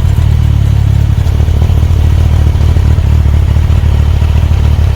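Kawasaki Versys 1000 SE's inline-four engine idling steadily, warmed up, through an Akrapovic titanium slip-on exhaust: a deep, even exhaust note.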